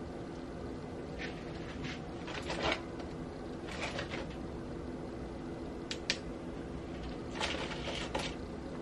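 Short, sparse rustles and scrapes of crisp fried egg rolls being turned by hand in a wire-mesh strainer, with two light clicks about six seconds in, over a steady low hum.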